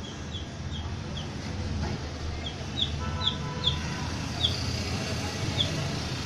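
Baby chicks peeping: short, high cheeps that each fall in pitch, four in a quick run at the start and about half a dozen more after a short pause. A low steady rumble runs underneath.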